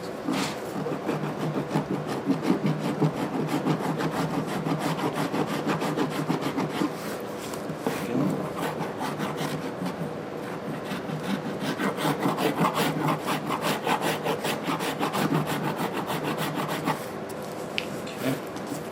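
Hardened epoxy filler being shaped by hand with quick back-and-forth rasping strokes, about four a second, pausing briefly twice.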